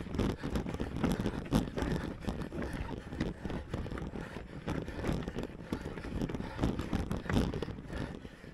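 Mountain bike ridden over rocky ground: tyres and frame rattle with many irregular knocks over a steady rumble of wind on the microphone.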